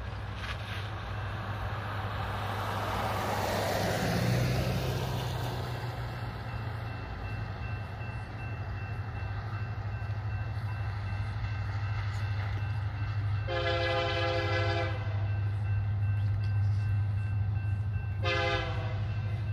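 Union Pacific EMD SD70M diesel locomotive approaching, its engine a low steady rumble, sounding its multi-note horn twice in the second half: a blast of about a second and a half, then a shorter one near the end.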